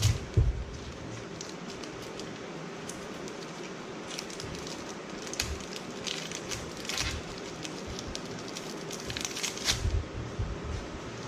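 Candy wrappers crinkling and rustling as they are handled and torn open, in irregular spurts with a few bumps and clicks, over a steady low hum.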